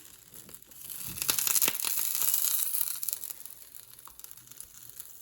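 Grilled cheese sandwich sizzling in an oil-sprayed frying pan, a hissing crackle that swells about a second in and eases off toward the end.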